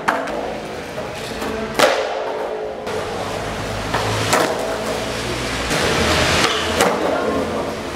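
Skateboard wheels rolling on a smooth concrete floor, broken by several sharp clacks of the board's tail popping and the deck landing during a flip trick.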